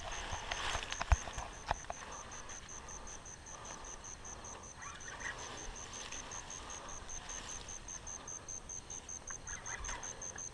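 Quiet marsh ambience with insect chirping: a high, evenly pulsed chirp repeating about five times a second. A few sharp clicks sound in the first two seconds.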